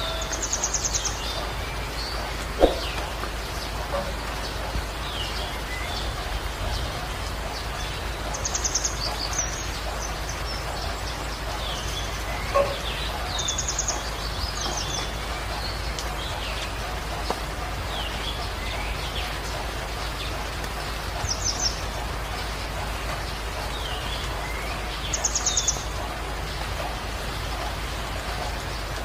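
Steady rain with birds chirping and calling throughout. A short buzzy trill comes back every few seconds. Two sharp taps stand out, one a couple of seconds in and one about halfway.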